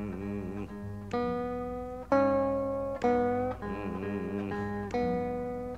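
Background music: an acoustic blues guitar in an instrumental break of a train song, sharply plucked notes about a second apart over a steady low drone.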